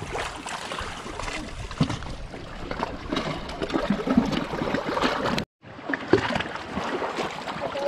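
Water washing and splashing against a rocky shore, with scattered sharp clicks and knocks and faint voices in the background. The sound drops out completely for a moment about five and a half seconds in.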